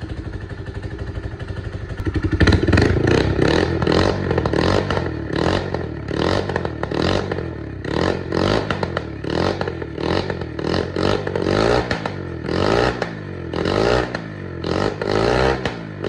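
Yamaha AG200's single-cylinder four-stroke engine running after its rebuild with a new CDI: it idles evenly for about two seconds, then is revved again and again in quick throttle blips, each rising and falling back.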